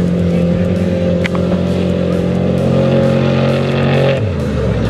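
Trophy Truck Spec off-road race truck's engine at full throttle, its note steady as it approaches, then dropping in pitch as it passes about four seconds in.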